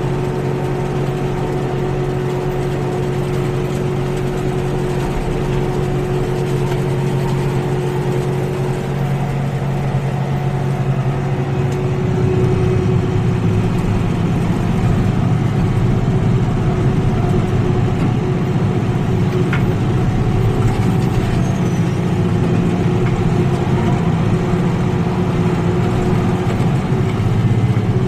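Kioti NX6010 compact tractor's diesel engine running under load while it pulls a bush hog rotary cutter through clover, a steady engine note. About twelve seconds in it becomes a little louder and rougher.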